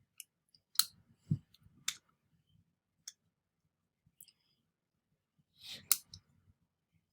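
Scattered sharp metallic clicks and a dull knock of steel pistol parts being handled and worked during disassembly of a Tokarev, about six separate clicks with the loudest near the end, just after a brief rustle.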